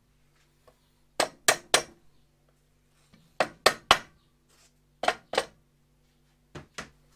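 Mallet tapping the aluminium rocker cover of a Honda CB750 engine to break it loose from its gasket, where it feels stuck on: about ten sharp taps in quick groups of three, three, two and two.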